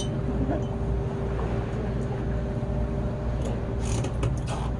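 Fishing boat's engine idling steadily, a low hum with one steady tone over it. A few light clicks come near the end.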